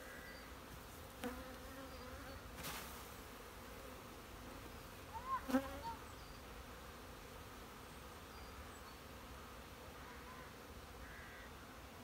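Steady humming buzz of a honeybee swarm as the bees walk up off a sheet into a new hive. A couple of faint clicks and one short louder sound about halfway through.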